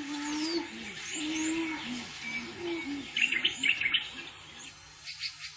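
Wild birds calling: low, repeated cooing notes alongside high chirps, with a burst of rapid sharp notes about three seconds in that is the loudest part.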